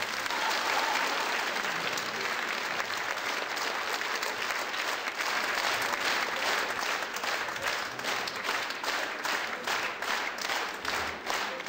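Theatre audience applauding after an opera. About halfway through, the clapping falls into a rhythmic clap in unison, two to three claps a second.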